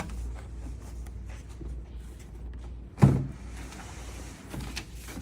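Shipping box and its contents being handled during unboxing: scattered small rustles and clicks, and one solid thump about three seconds in as something is set down or knocked.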